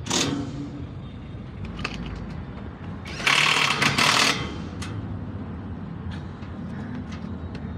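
Cordless drill driving a screw into a generator enclosure's sheet-metal louvre panel, one burst of about a second a little past three seconds in.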